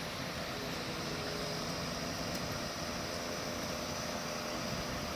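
A truck-mounted crane's diesel engine running steadily, a constant drone with a faint steady hum.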